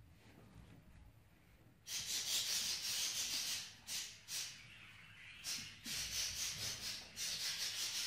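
Budgerigars chattering in harsh, raspy bursts, starting about two seconds in and coming on and off several times.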